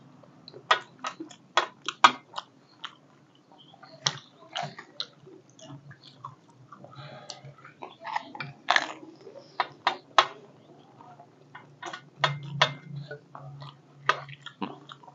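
Panipuri being eaten with chopsticks: irregular sharp clicks and crunches, coming in clusters, from chopsticks on dishes and crisp puris being bitten.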